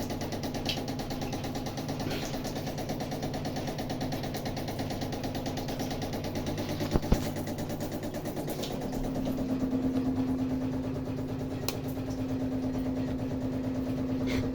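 Gas tankless water heater and its water pipes humming: a steady, fluttering drone with several steady tones, one of which swells and holds from about nine seconds in.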